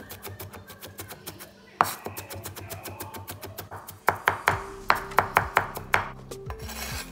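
Garlic being minced with a cleaver on a bamboo cutting board: the blade taps the board in quick runs, many strokes a second, with one loud knock about two seconds in. From about four seconds in come heavier chops, about five a second. Background music plays under it.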